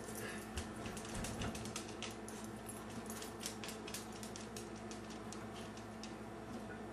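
Dog eating peanut butter: faint, irregular clicking and smacking of licking and chewing, busiest in the first few seconds, then thinning out.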